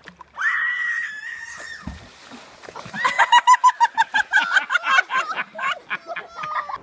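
A person's high-pitched scream held for about a second and a half, then a fast run of high-pitched laughter.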